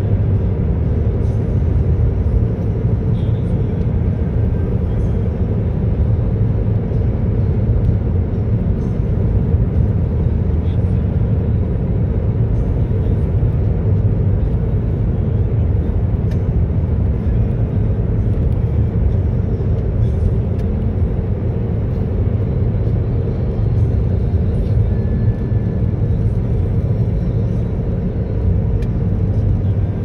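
Steady low road and wind rumble inside a car's cabin at highway speed.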